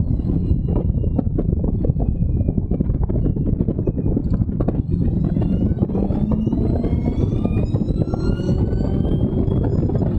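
Allard J2's V8 engine running hard at racing speed, recorded onboard in the open cockpit. From about six seconds in, the engine note rises steadily as the car accelerates under load.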